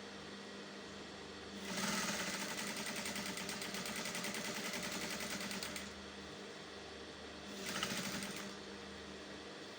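Sewing machine stitching the fly seam of a pair of trousers: one run of about four seconds, then a short burst of under a second near the end.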